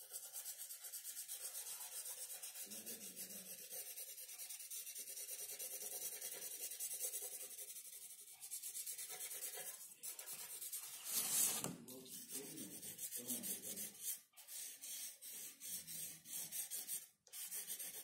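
Pencil shading on drawing paper: fast back-and-forth scratching strokes that keep up with short pauses. About two-thirds of the way through comes one louder rushing scrape.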